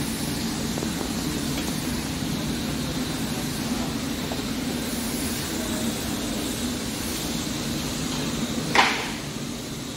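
Heavy CNC lathe running with a steady machine hum. A single short, sharp sound cuts through about nine seconds in.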